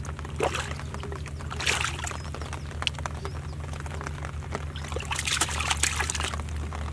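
A hand splashing and stirring muddy water in a small water-filled mud hole: a series of irregular wet splashes, loudest about two seconds in and again around five to six seconds in, over a steady low hum.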